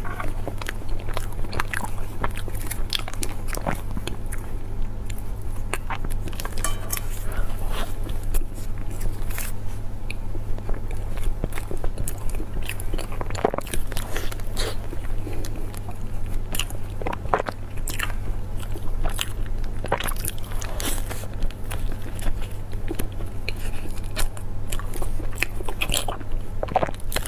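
Close-miked biting and chewing of square chocolate 'iceberg lava' desserts: repeated sharp crunches and crackles as the set chocolate breaks, with the paper wrapper crinkling as it is peeled back. A steady low hum runs underneath.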